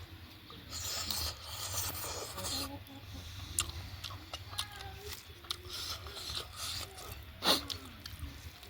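Close-up eating sounds: chewing and wet mouth noises, with a stretch of louder chewing about one to three seconds in and sharp smacking clicks, the loudest about seven seconds in. A faint voice or animal murmur sits underneath.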